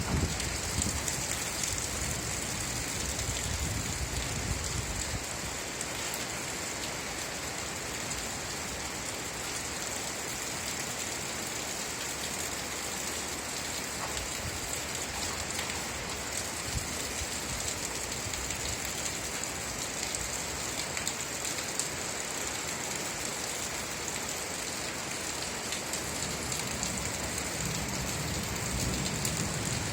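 Steady real rain falling, an even hiss of drops. There is a low rumble underneath in the first few seconds and again near the end.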